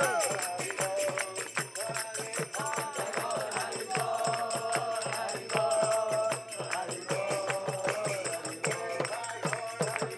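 Devotees singing a Hindu devotional kirtan chant together, with small brass hand cymbals (kartals) clashing a fast, even beat.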